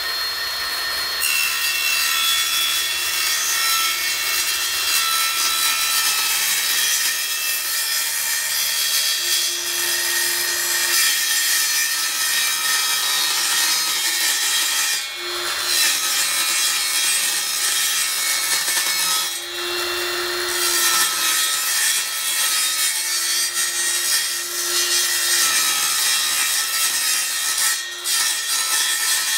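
Ryobi cordless circular saw running under load, ripping a long cut through a thin hardboard sheet: a steady motor whine over the noise of the blade in the board, dipping briefly three times as the cut goes on.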